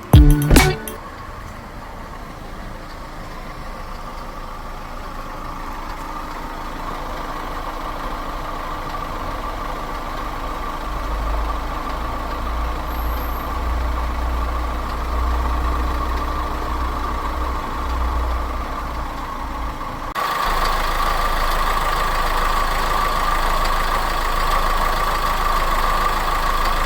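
Opel Astra 1.3 CDTI small diesel engine idling steadily with a metallic noise that the owner suspects comes from the injectors or a worn timing chain. There is a sharp knock about half a second in, and the sound gets louder and brighter about twenty seconds in.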